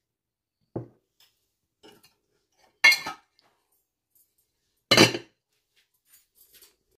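Dishware being handled: a soft knock about a second in, then two loud clinks about two seconds apart, the second as a glass lid is set down over the serving dish.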